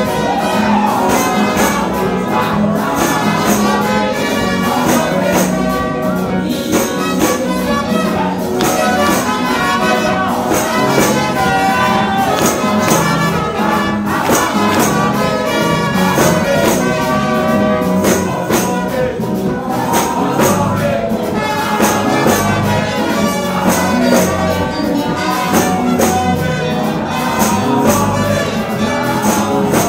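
Live upbeat worship music with a steady tambourine-driven beat and voices singing into microphones over it.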